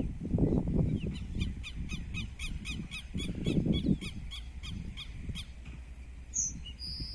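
Chama-chuva (tico-tico-do-campo) singing a high series of short, evenly repeated notes, about four a second, for some four seconds, with a few higher single notes near the end. A low rumble on the microphone swells twice underneath.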